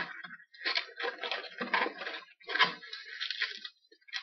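Latex 260 modelling balloons squeaking and rubbing against each other and the hands as they are twisted into a double ear twist. The squeaks come in several irregular stretches and die down near the end.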